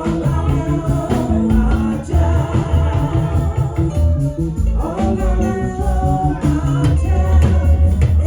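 Gospel song in a church service: voices singing over a live band with heavy bass and percussion keeping a steady beat.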